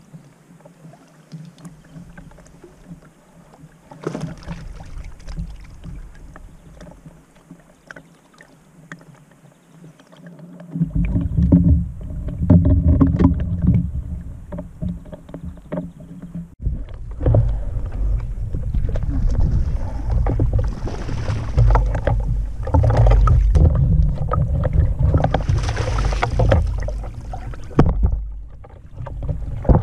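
Wind buffeting the microphone and water slapping against the hull of a small fishing boat on choppy water. It is fairly quiet at first, then a loud low rumble with many knocks sets in suddenly about eleven seconds in and carries on.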